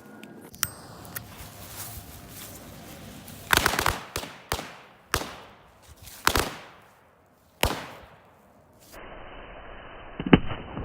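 Thunder Bomb firecrackers exploding: a run of sharp bangs at uneven intervals, several in quick succession about four seconds in and a loud final bang near the end.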